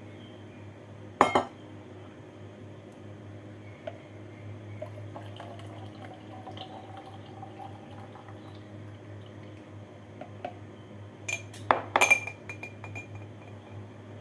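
Glass and kitchen utensils clinking: one sharp clink about a second in, faint liquid sounds in the middle, then a quick run of clinks near the end with a brief glassy ring, over a steady low hum.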